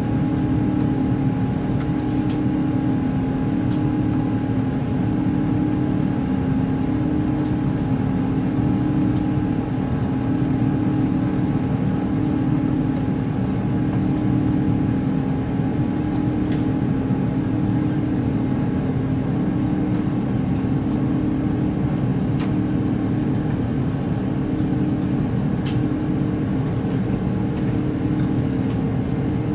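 Cabin noise of an Airbus A350 climbing after takeoff, heard inside the cabin by the wing: the steady roar of its Rolls-Royce Trent XWB engines and airflow, with a low hum that pulses about once a second.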